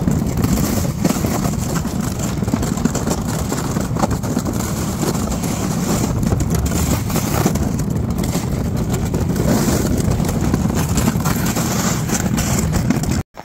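Steady engine and wind rumble of a small vehicle being ridden across the ice, cutting off suddenly near the end.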